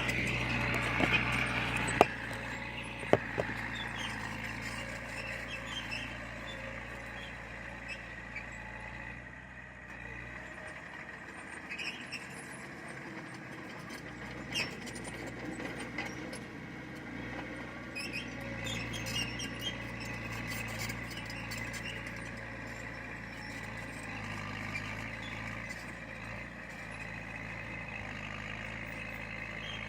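Heavy diesel construction machinery running steadily, with a few sharp metallic clanks in the first few seconds.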